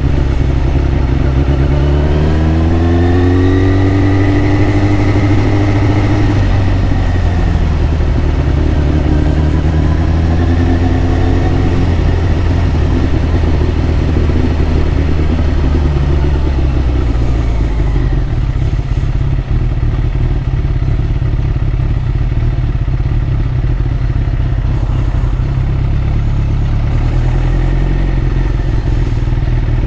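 Yamaha YZF1000R Thunderace's inline-four engine under way, its pitch climbing as it accelerates about two seconds in and again around ten seconds in, then running steadily at cruising speed.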